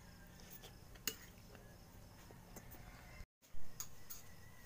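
A few light clicks of a spoon against a plate and small eating sounds, broken by a brief dead silence a little past three seconds in, followed by a louder short clatter.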